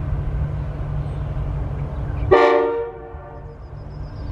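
A diesel freight locomotive sounds one short blast of its chord horn about two seconds in, over the steady rumble of the train's diesel engines as the train approaches.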